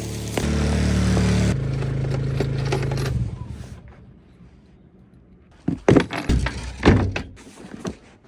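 Small portable generator running with a steady hum that shifts in pitch twice, then dying away about three seconds in; the owner reckons it probably needs oil. A few sharp knocks and clatters follow near the end.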